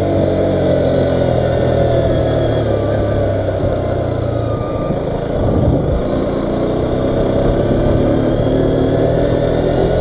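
A 125cc motorcycle engine running under the rider. Its note falls as the bike slows, stays low through the middle, and climbs again near the end as it pulls away.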